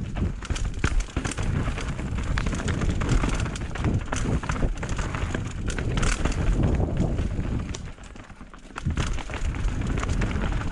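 Enduro mountain bike descending a rocky, rooty trail at speed, ridden without a chain: tyres crunching over loose stones and dirt, with constant knocks and rattles from the bike and wind rumbling on the camera microphone. It goes briefly quieter about eight seconds in.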